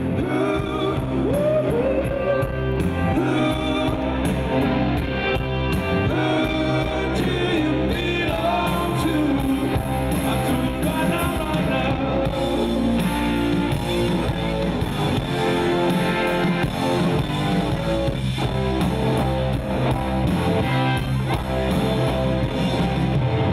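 Rock music with singing, electric guitars and a drum kit.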